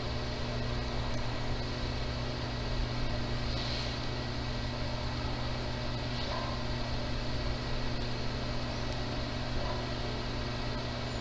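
Steady background hum with an even hiss, unchanging throughout, with no other distinct events.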